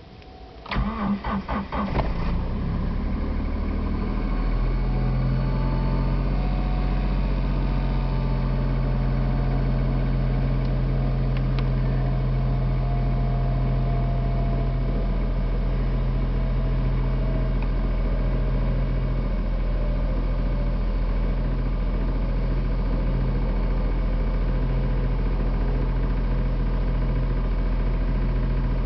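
1997 Suzuki Swift 1.0's three-cylinder engine cold-started at −4 °C on a weak battery: the starter cranks in short pulses about a second in, and the engine catches after about a second and a half. It then settles into a steady fast cold idle near 2,000 rpm.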